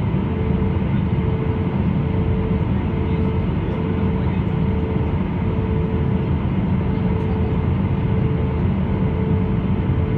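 Airbus A320-214 in flight, its CFM56 engines giving a steady drone under a rush of air, with a constant mid-pitched hum tone on top.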